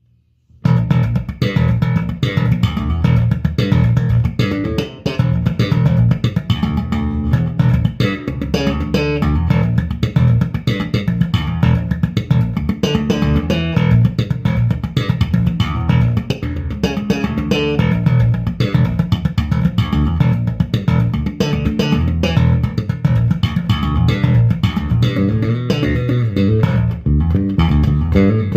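Bass guitar played continuously, starting about half a second in after near silence: a sound test of a 1980s Japanese Yamaha LB II.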